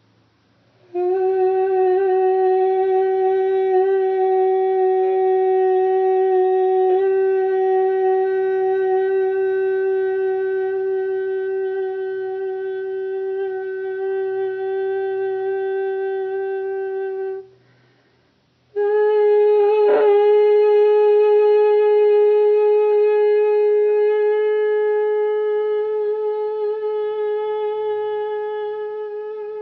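A voice singing long sustained tones in a steady pitch: one note held about sixteen seconds, then, after a short breath, a slightly higher note held to the end. A small click sounds about twenty seconds in.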